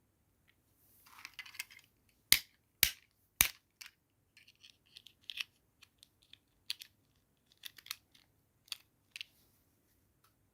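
Toy doll set and its packaging being handled: a brief rustle, then three loud sharp clicks about half a second apart, followed by a scattering of lighter clicks and taps.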